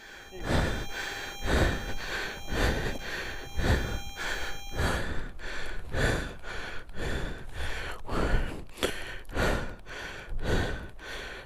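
Heavy, fast panting, about two breaths a second, from a man out of breath after straining to lift a fallen, heavily loaded motorcycle.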